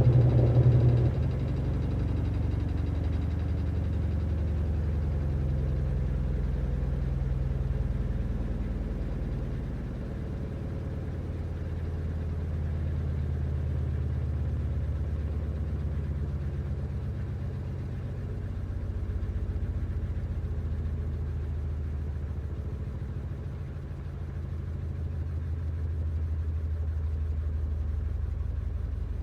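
Laundry machine running: a steady low motor hum that slowly swells and eases every several seconds. It is a little louder for about the first second.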